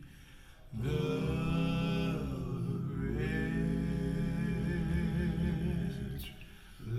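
Music played back through Silent Pound Challenger loudspeakers: a wordless hummed or sung vocal line over steady bass. It starts about a second in and drops away near the end.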